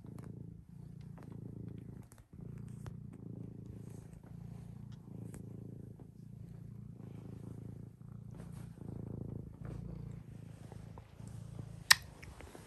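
Tabby cat purring close to the microphone while being stroked, the purr swelling and easing about once a second. A single sharp click near the end.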